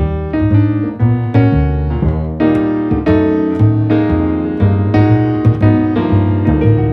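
Background music: piano playing a steady run of chords and melody notes over a moving bass line.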